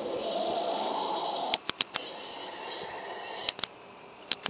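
A Halloween skull's sound module plays a noisy sound effect through a small external speaker, which stops about a second and a half in. Sharp clicks follow, first four in quick succession, then pairs a little before and near the end.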